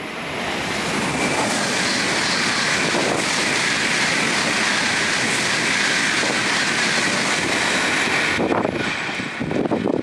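Shinkansen 300 series bullet train passing at speed: a steady rushing hiss that builds within the first second, holds for several seconds, and falls away sharply near the end.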